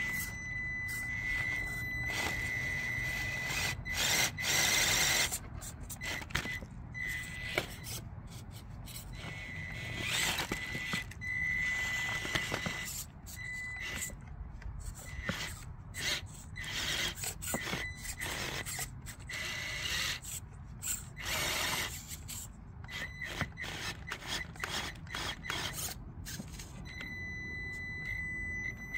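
Traxxas TRX-4M 1/18 electric mini crawler, fitted with Injora underdrive gears, climbing over rocks: its drivetrain whirs in short spurts while the tyres and chassis scrape and click against the stone. A thin, steady high tone comes and goes underneath.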